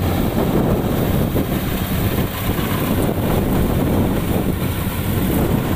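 Rice combine harvester's engine running steadily as the machine works through soft, sinking mud, with wind buffeting the microphone.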